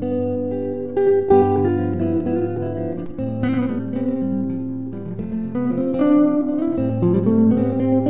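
Background music played on acoustic guitar, plucked and strummed notes over a held low bass note.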